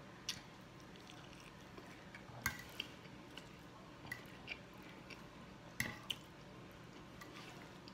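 Quiet close-up eating sounds: chewing of garlic bread and spaghetti, with about seven small sharp clicks and smacks scattered through, from the mouth and a fork working in the spaghetti on the plate.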